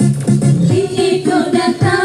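Live organ tunggal band music, keyboard-led, with a singer's melody over a steady bass beat.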